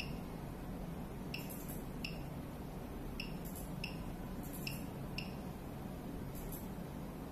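Short, high electronic key beeps from an ECG machine's control panel as its buttons are pressed, about eight at uneven intervals, some with faint clicks, over a steady low hum.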